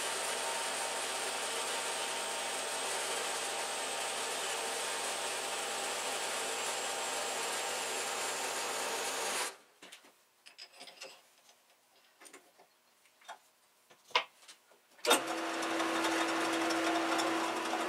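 Horizontal metal-cutting bandsaw running and cutting through a metal tripod shaft, a steady mechanical noise for about nine seconds, then stopping. A few faint clicks and knocks follow. About fifteen seconds in there is a sharp knock, and a metal lathe starts running with a steady hum.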